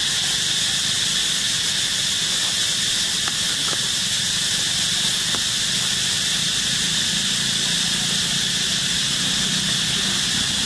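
Steady, even drone of an insect chorus, high-pitched and unbroken, with a few faint ticks.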